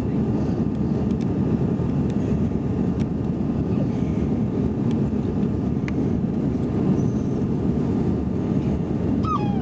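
Steady cabin noise inside an Airbus A330-200 on final approach: the low, even rush of airflow and engines, with a faint steady whine above it.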